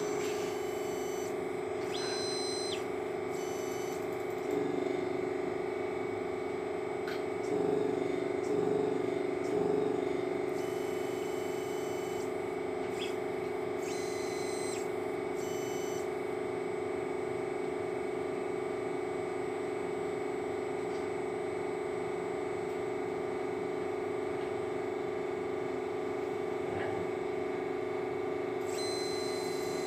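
Steady electrical and mechanical hum from the electrophysiology rig's equipment, broken several times by brief high-pitched whines of the motorized pipette manipulator moving the pipette during automated cleaning. A few soft bumps come about eight to ten seconds in.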